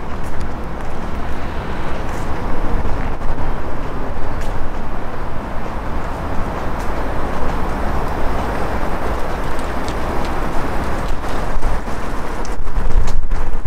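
Road traffic noise, swelling about halfway through as a vehicle passes, over a constant low rumble.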